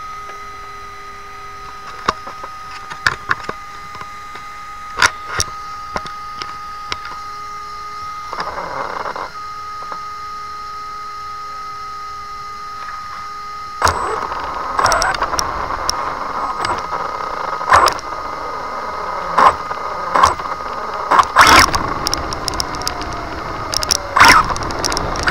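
Electric RC car with a brushless motor: a steady high whine while it sits still, with a short whine falling and rising again about eight seconds in. From about fourteen seconds in it moves, louder, with many sharp clicks and knocks, the loose buttons of the clipped-on camera rattling.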